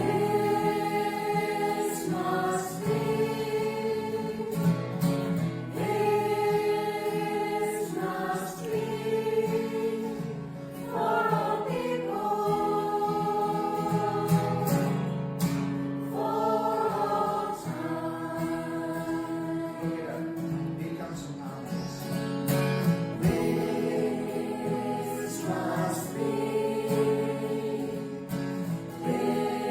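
Background music: a song with several voices singing together in long held notes, in the manner of a choir.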